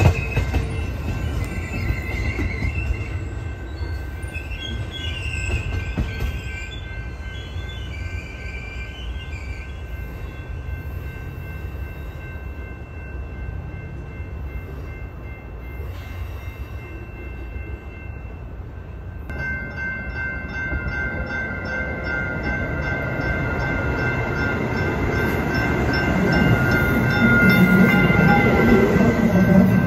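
Amtrak Superliner passenger cars rolling past with a steady high wheel squeal over a low rumble. About two-thirds in, a Trinity Metro Stadler FLIRT commuter train pulls in, its wheel squeal and rumble growing louder toward the end.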